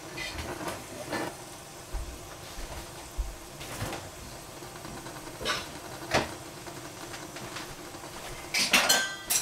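Scattered light knocks and clinks of kitchen utensils and cookware over a faint steady background, with a quick flurry of clatter and ringing clinks near the end.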